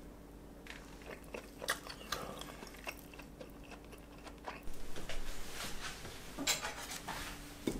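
Crusty, pan-toasted bread of a grilled cheese sandwich crackling and crunching as it is pulled apart, with scattered small clicks and soft tearing noises. There is a busier run of crackling about five seconds in.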